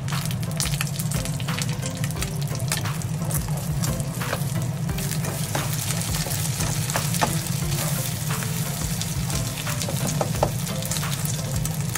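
Eggs sizzling and crackling as they fry in oil in a nonstick pan, with clicks and scrapes from a spatula cutting through the egg, over a steady low hum.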